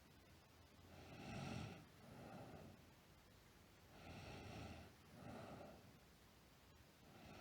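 A sleeping girl snoring softly in a slow, even rhythm. Two breaths about three seconds apart, each a longer snore followed at once by a shorter second sound, with a third breath starting near the end.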